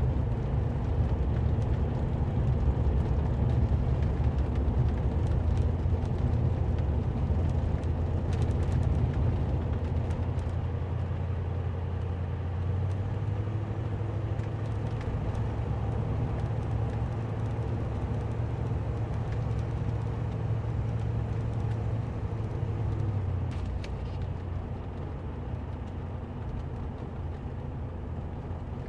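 A 1971 Cadillac's 472 V8 heard with road noise from inside the cabin while driving: a steady low hum. It shifts in pitch about 13 seconds in and drops to a quieter level about 23 seconds in.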